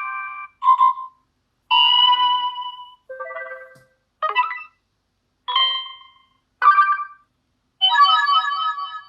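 Built-in sound effects of a CUBOT X20 Pro smartphone: short electronic chime tones played one after another, about seven in turn, each a second or less with silence between.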